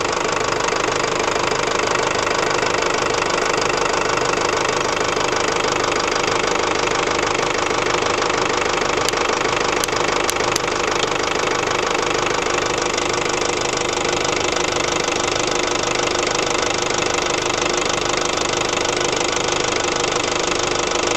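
Ford Transit 2.5 diesel engine idling steadily.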